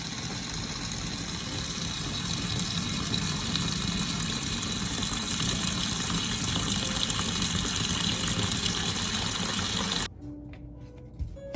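Water running steadily from a kitchen tap, growing slightly louder, then cutting off suddenly near the end.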